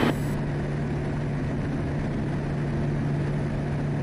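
Quest Kodiak's Pratt & Whitney PT6A turboprop engine and propeller running steadily at takeoff power during the climb just after liftoff: an even drone with a constant low hum.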